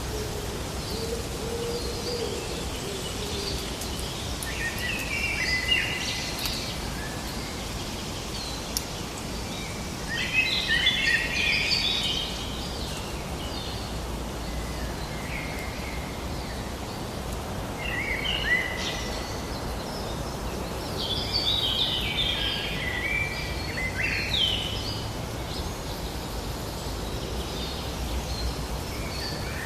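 Songbirds singing several short, rapid warbling phrases, the fullest about ten and twenty-two seconds in, over a steady low outdoor ambience.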